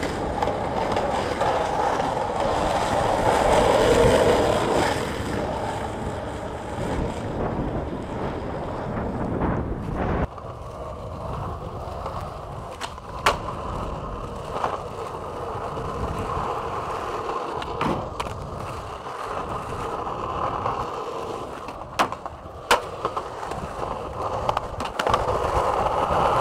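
Skateboard wheels rolling on pavement, loudest in the first few seconds. In the second half there are a few sharp wooden clacks of the board popping and landing, two of them in quick succession near the end.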